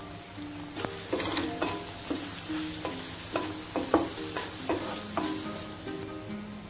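Fried chicken pieces being stirred and tossed in sauce in a nonstick frying pan, sizzling, with a quick series of scraping strokes from about a second in until a little past five seconds.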